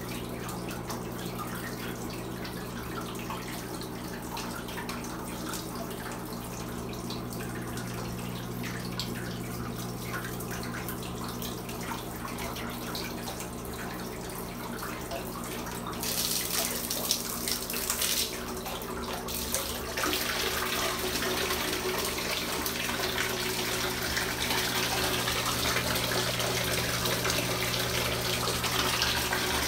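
A jet of water from a 3D-printed laminar flow nozzle pouring into a partly filled bathtub, with a steady low hum underneath. The stream is still a bit rough, so it lands with a splashing patter rather than cleanly. The splashing gets louder a little past halfway through.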